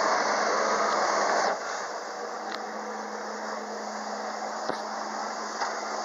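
Hydro-jet flyboard in flight: steady rushing hiss of the water jets blasting from under the board, over the hum of the engine that pumps water up its hose. Gets suddenly quieter about a second and a half in, then runs on steadily.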